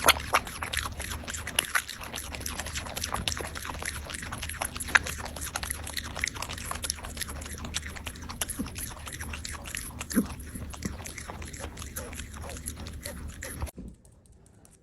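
Close-up crunchy chewing, many quick small bites one after another, stopping abruptly about a second before the end.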